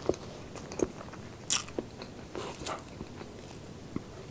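A person chewing braised pork close to the microphone: wet mouth smacks and clicks at irregular intervals, with a louder noisy burst about a second and a half in.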